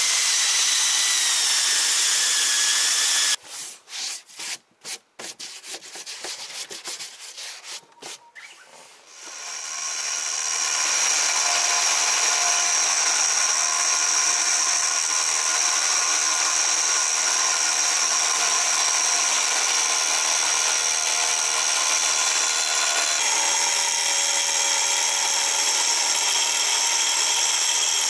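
A homemade electric sander grinds the epoxy-coated fibreglass hull, its motor whine wavering with the pressure. After a few seconds of choppy, broken sound, a power tool runs steadily for the rest, its pitch shifting slightly about two-thirds of the way through.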